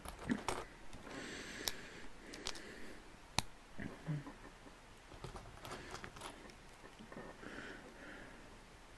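Plastic LEGO bricks clicking and rattling as they are handled and fitted together, with scattered sharp clicks and a short rustle of loose pieces.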